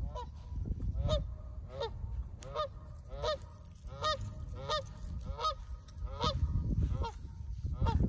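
Canada geese honking in a steady series of about eleven honks, roughly one and a half a second.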